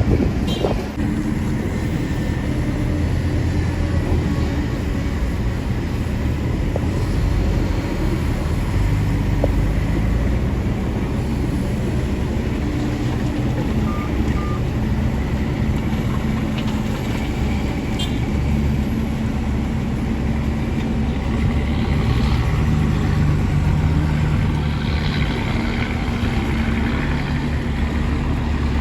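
Heavy diesel engines of a Kobelco excavator and a dump truck running steadily while the truck is loaded, the engine note shifting a little as the machine works.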